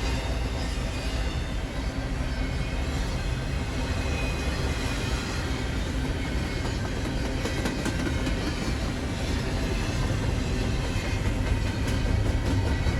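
Freight train of intermodal well cars rolling past, a steady rumble of wheels on rail with a few faint clicks.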